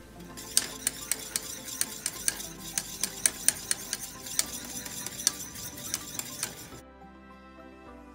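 Wire whisk stirring thick gravy in a stainless steel saucepan, its tines clicking against the pan about four times a second and stopping abruptly near the end. Soft background music plays underneath.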